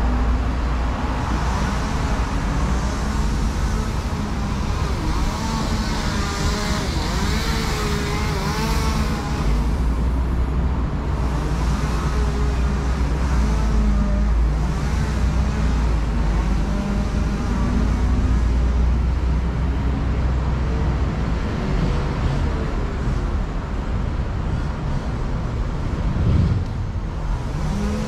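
Road traffic: cars passing and engines running on a street, over a steady low rumble.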